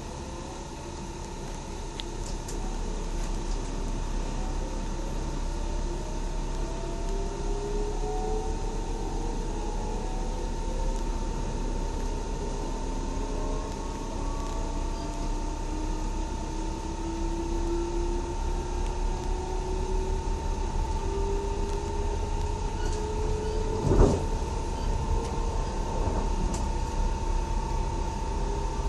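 Cab of an X60 (Alstom Coradia Nordic) electric commuter train pulling away from a station: the electric traction motors whine in several tones that rise slowly in pitch as the train gathers speed, over a steady running rumble and a constant high tone. Near the end, a single loud knock from the wheels on the track.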